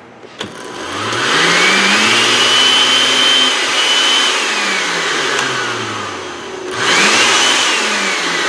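Oster blender base running with no jar on, its brushed motor whining up to speed after a button click, holding, then winding down. About seven seconds in it is switched on again and spins up and coasts down a second time.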